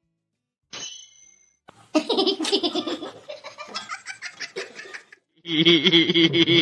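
A person laughing hard in repeated bursts, getting louder near the end, after a short high-pitched sound about a second in.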